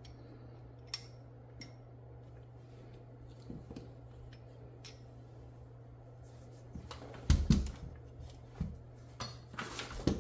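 Rollers and tools being handled and set down on a silicone work mat: a few light clicks early, then a cluster of louder knocks about seven seconds in and another near the end, over a faint steady low hum.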